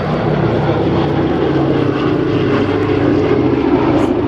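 Boeing B-17 Flying Fortress flying a display pass, its four radial piston engines giving a loud, steady propeller drone.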